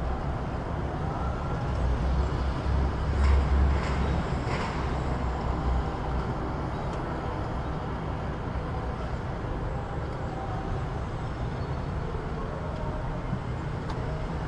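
City street ambience: a steady rumble of road traffic, swelling as a heavier vehicle passes about two to six seconds in, with a few light clicks during the pass.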